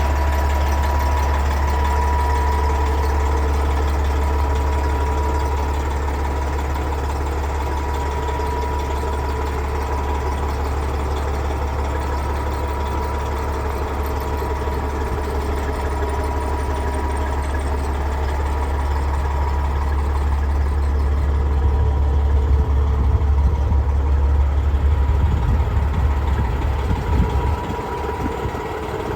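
Detroit Series 60 six-cylinder diesel idling steadily with a low rumble. It grows louder for a stretch in the second half and eases near the end.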